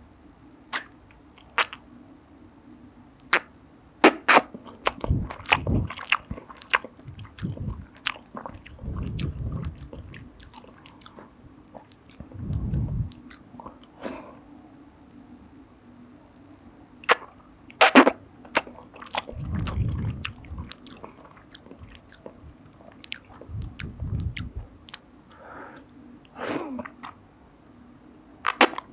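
Close-up mouth sounds of eating soup noodles: chewing and wet mouth noises in several second-long swells, with scattered sharp clicks between them.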